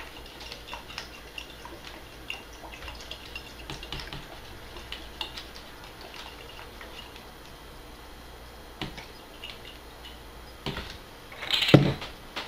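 Soy sauce trickling and dripping from a bottle into a small plastic tub, a run of faint light ticks. About a second before the end the bottle is set down on the wooden table with a knock.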